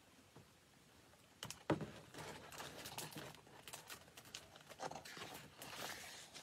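A large hardcover picture book being handled and its page turned. A sharp knock comes about a second and a half in, then paper rustling and crinkling as the page is swept over and the book settled open.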